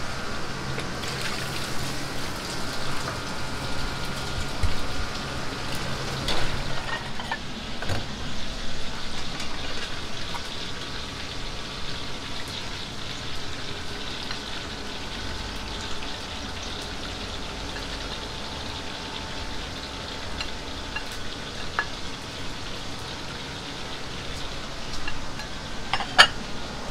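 Chicken pieces deep-frying in a wok of hot oil over a gas burner: a steady sizzle, with scattered light clinks of kitchen utensils. Near the end, one sharp clack as a rice bowl is set down on a plate.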